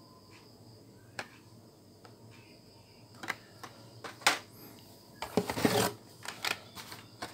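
Plastic blister-pack toy car cards being handled and shuffled in a cardboard case: scattered clicks and crinkles of plastic and card, a sharp tap about four seconds in, and a denser rustle of cards being lifted near the end.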